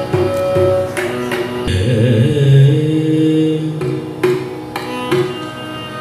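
Carnatic music: a slow, ornamented melodic line from the singer and violin, held over sustained notes, with scattered mridangam strokes near the start and again about two-thirds of the way through.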